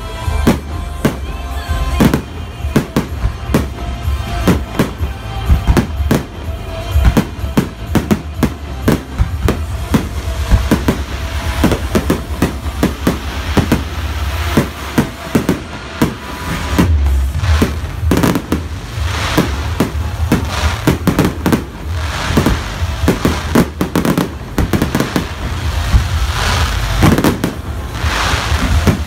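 Fireworks display: a rapid, irregular barrage of sharp bangs from bursting aerial shells, dozens of reports in a row, with music playing underneath. The bursts thicken into a denser crackle over the last ten seconds or so.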